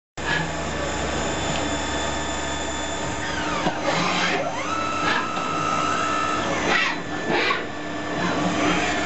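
Tornos 13bi Swiss-type CNC lathe running with a steady mechanical hum. About three seconds in, a motor whine falls in pitch and rises again, then holds a steady tone for a couple of seconds; a few shorter surges of whine follow.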